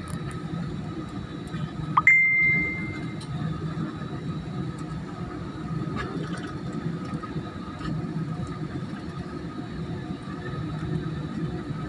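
Steady low rumble inside an airliner cabin on the ground, engines and ventilation running. About two seconds in, a single loud ding rings out for about a second and fades.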